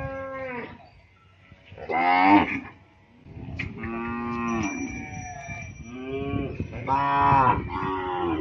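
A herd of zebu cattle mooing. A long moo fades out within the first second, a short loud moo comes about two seconds in, and from about three seconds on several moos overlap.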